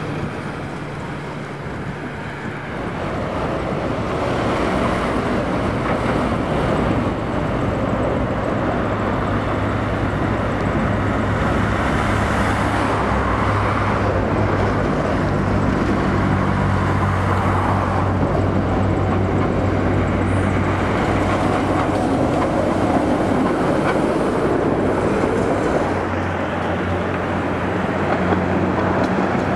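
Tatra tram running on street track: a steady low hum with rolling wheel-on-rail noise, getting louder about three seconds in and easing a little near the end.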